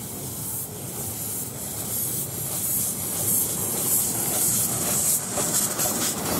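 Miniature 7¼-inch gauge steam tank locomotive drawing close, steam hissing loudly from its cylinders over a low rumble of wheels on the track. It grows steadily louder as it approaches, and the hiss breaks into quick pulses near the end as it passes.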